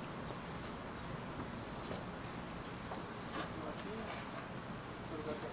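Quiet outdoor background: insects making a steady high-pitched drone, with a few faint taps about three and a half seconds in.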